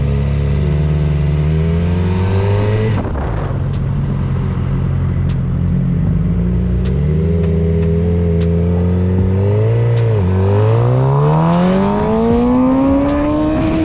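Suzuki GSX-R600 inline-four engine being ridden, its revs climbing, dipping about three seconds in and again about ten seconds in, then making a long climb near the end.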